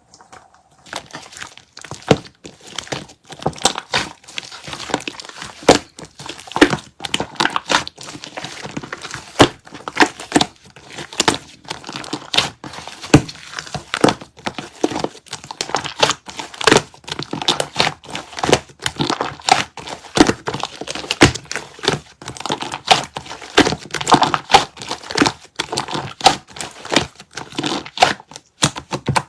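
Continuous irregular crinkling and crackling, a dense stream of sharp clicks with louder snaps here and there, like something crumpled or handled close to the microphone.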